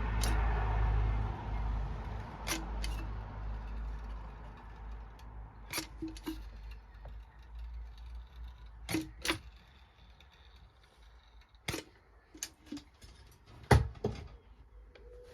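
Scattered sharp clicks and knocks of small parts and tools being handled, irregularly spaced, with the loudest knock near the end. A low hum fades out in the first second or two.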